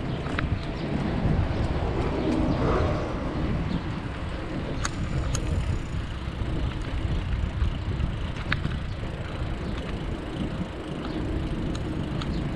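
Riding noise from a bicycle picked up by a chest-mounted GoPro: a steady low rumble of wind and tyres, with a few sharp clicks and rattles from the bike.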